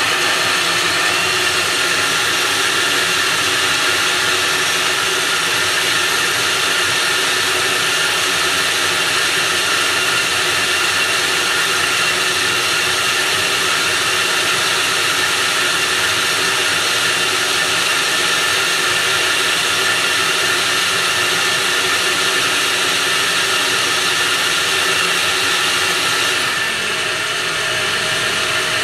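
Electric kitchen blender running steadily at speed, grinding chillies, onion, garlic, ginger and tomato with water and oil into a smooth wet chilli paste. Its tone shifts slightly near the end.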